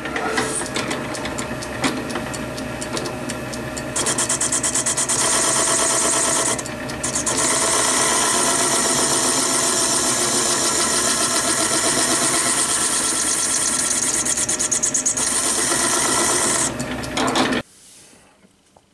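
Lathe running with a zinc-aluminium flywheel casting bolted to the faceplate, taking another facing cut to clean up small holes and hollows left in the face: a steady machine whir, with a brighter, hissier cutting sound from about four seconds in. It cuts off abruptly near the end.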